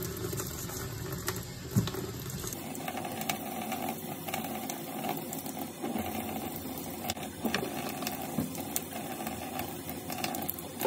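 Fine-grit wet sandpaper rubbing over a steel knife, a steady scratchy hiss with scattered small clicks; its tone shifts about two and a half seconds in.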